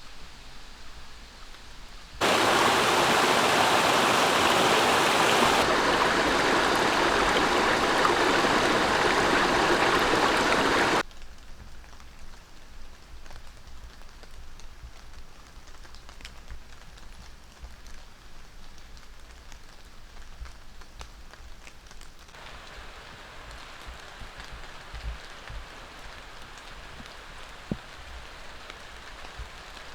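Steady rush of water, loud for about nine seconds, starting and stopping abruptly, then carrying on much quieter.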